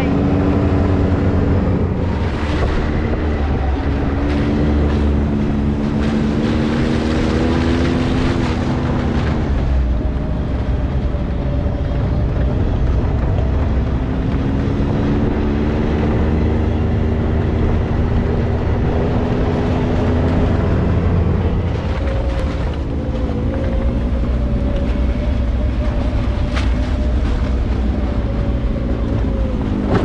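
Side-by-side UTV engine running under way, its revs climbing slowly and then dropping back, twice, over a heavy low rumble.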